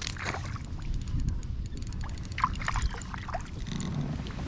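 Water splashing in short bursts as a hooked bass is reeled to the side of a kayak, over a low rumble of wind on the microphone.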